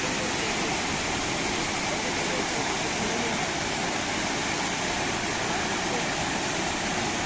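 Waterfall and mountain stream rushing steadily, a constant even wash of falling water.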